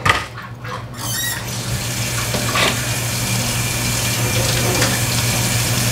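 A steady stream of water running, filling a dog's water bowl; it starts about a second in.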